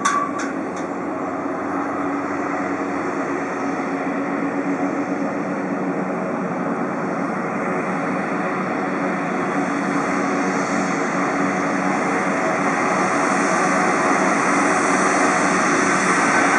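Piaggio P180 Avanti's twin Pratt & Whitney PT6A turboprops running at taxi power, a steady engine and propeller drone that grows gradually louder as the aircraft taxis toward the listener.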